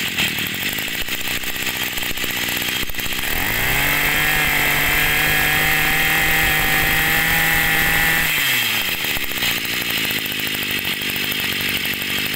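A 20cc Maruyama brush cutter engine running. It idles, is revved up about three and a half seconds in, holds high speed for about four seconds, then drops back to idle.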